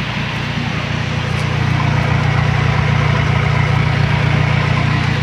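Isuzu TFR 2500's 2.5-litre four-cylinder diesel engine idling steadily through an exhaust pipe that exits ahead of the rear axle, a low hum that grows louder about one and a half seconds in.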